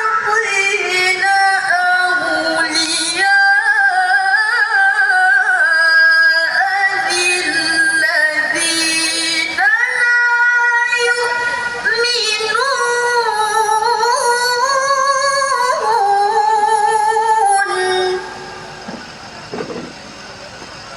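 A woman's voice reciting the Qur'an in the melodic tilawah (mujawwad) style, with long held notes that waver in ornaments up and down the scale. The recitation breaks off about 18 seconds in, leaving low background noise with a couple of brief sounds.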